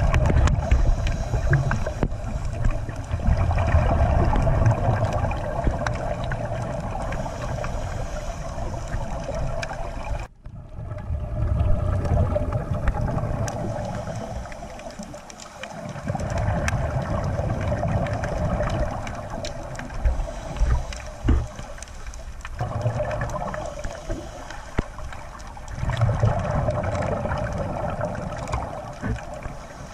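Muffled underwater sound from a camera in its waterproof housing: water rumbling and gurgling as the camera moves through it, swelling and fading every few seconds. The sound cuts out for a moment about ten seconds in.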